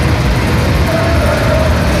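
Steady loud rumbling din of amusement-ride machinery in an indoor fairground hall, with a faint thin tone coming in about halfway through.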